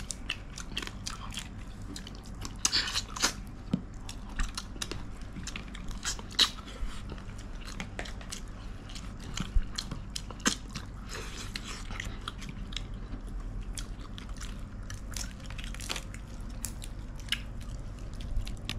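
Close-up eating sounds: biting and chewing fried crab with egg, with irregular crunches and clicks, over a steady low hum.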